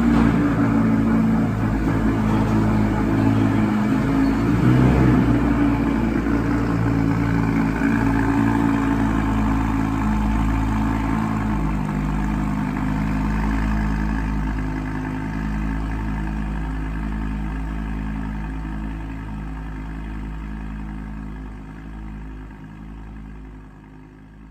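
Audi R8 Spyder's 5.2-litre V10 idling steadily with its exhaust valves open, running with misfires. It swells slightly about four to five seconds in and fades away gradually near the end.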